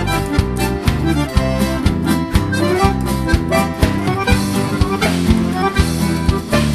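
Instrumental break in a sertanejo song: accordion playing the melody over a steady bass and drum beat, with no vocals.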